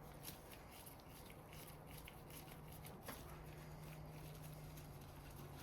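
Near silence: a faint steady hum with two soft clicks, one just after the start and one about three seconds in.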